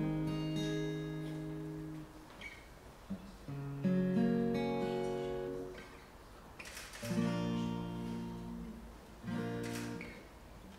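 Acoustic guitar playing slow chords, the strings of each picked one after another and left to ring and die away. A new chord comes in about every three seconds.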